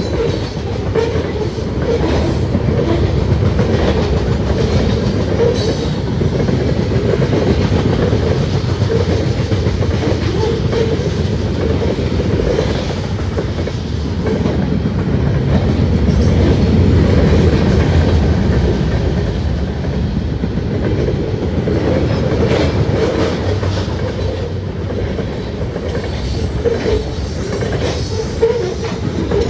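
Freight cars (tank cars, a flatcar and covered hoppers) rolling past at close range: a steady rumble of steel wheels on rail, with clickety-clack and scattered sharp clicks from the wheels.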